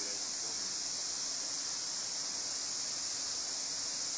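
Steady, high-pitched insect chorus, an even unbroken hiss with no pauses.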